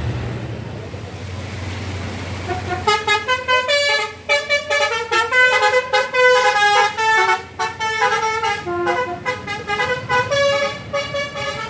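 Bus telolet horn, a Basuri multi-note air horn, playing a fast tune of quickly changing notes that starts about three seconds in, after a low rumble.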